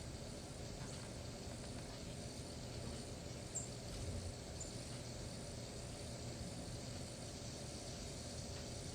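Steady outdoor background noise with a low rumble, and two faint, short, high chirps near the middle.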